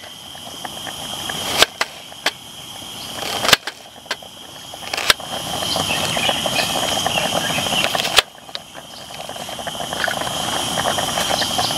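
Folding knife slicing through an onion on a wooden cutting board, the blade knocking sharply on the board about five times at uneven intervals, with a steady high hiss underneath.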